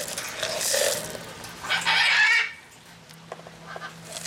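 Bird calls: two short calls in the first second, then a louder harsh call just under a second long about two seconds in.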